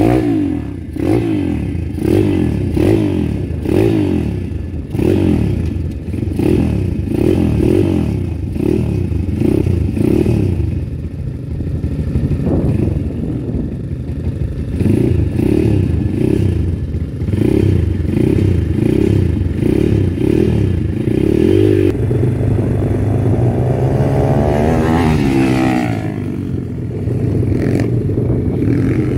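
Pitbike engines running close by, the sound surging and dropping in regular pulses about twice a second. Then it settles into a steadier drone, and near the end an engine note climbs and falls again as a bike revs or passes.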